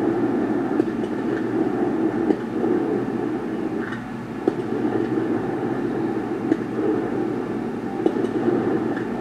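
Fireworks display going off: a dense, steady rumble of many bursts, with scattered sharper pops.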